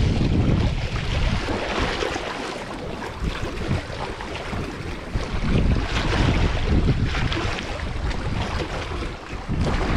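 Gusty wind buffeting the microphone, a heavy rumbling rush that swells and eases.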